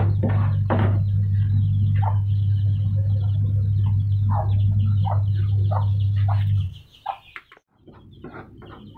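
Birds giving short repeated calls over a steady low hum. The hum cuts off abruptly about seven seconds in, and the calls carry on more faintly after it.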